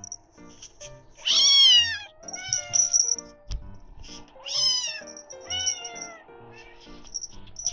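A Munchkin cat meowing loudly and insistently for its morning food. There are two long meows, about a second and four and a half seconds in, each followed by a shorter one. Light background music plays under them.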